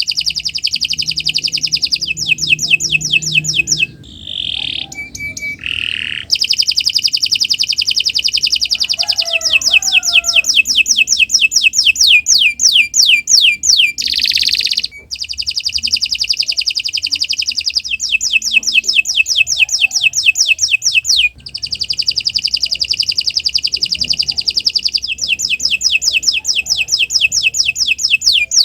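Domestic canary singing a long song of rapid rolling trills, fast repeated notes in phrases several seconds long with only brief breaks between them.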